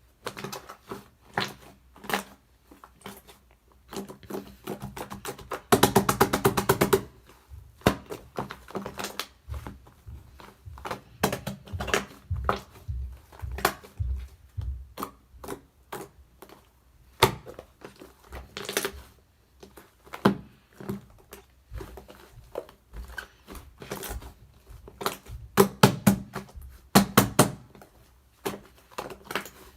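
Yellow shaving-foam slime being squeezed and pressed by hand, giving irregular sticky clicks and pops, with a fast run of crackling about six seconds in.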